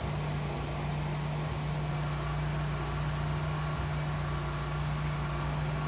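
A steady low motor hum.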